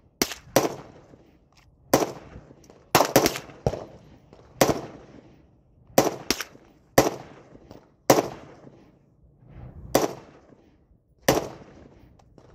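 Glock 19 9mm pistol firing about a dozen shots at uneven spacing, some as quick pairs, each shot trailing off in a short echo.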